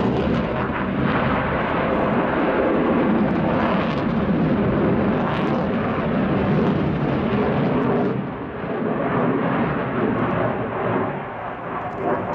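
Sukhoi Su-27's twin Saturn AL-31F turbofans running at high power as the jet flies a display manoeuvre: a loud, steady jet noise that dips and wavers after about eight seconds.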